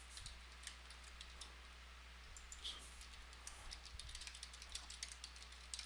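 Faint computer keyboard typing and mouse clicks: scattered sharp keystrokes that come quicker in the second half, over a low steady electrical hum.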